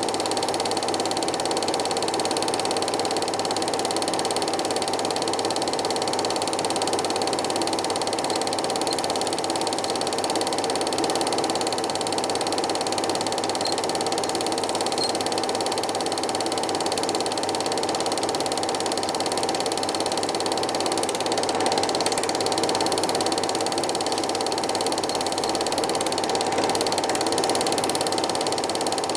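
Cine film projector running: a steady, even mechanical clatter from the film transport, with a constant whirr underneath.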